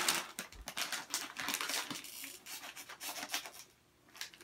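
Crinkling and rustling of a Cheetos snack bag being rummaged through: a dense run of crackles that stops about three and a half seconds in.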